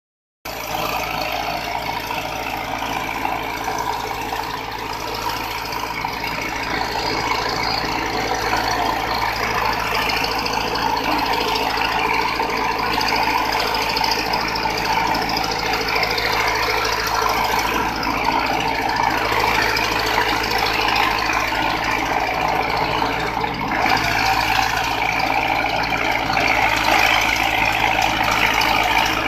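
Diesel engine of a Cat E110 excavator running steadily under work, unloading a truck, a little louder near the end.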